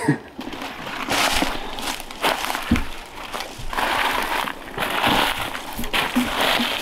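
Footsteps crunching and rustling through dry leaf litter and brush in an uneven run of steps, with a dull thump about three seconds in.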